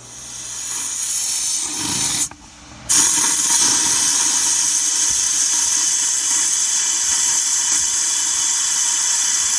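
Water spraying hard, a steady loud hiss that builds over the first couple of seconds, breaks off briefly, then returns louder and holds steady.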